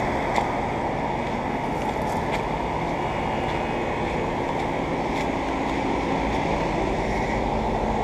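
Outdoor central air conditioner condenser units running: a steady hum under a steady rush of fan air.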